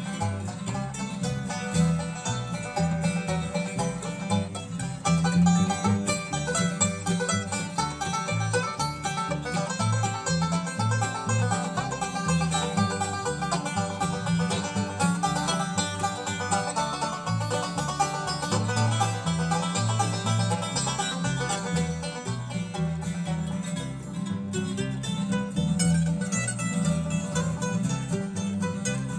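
Bluegrass band playing an instrumental break, with banjo and guitar picking over a steady bouncing bass line.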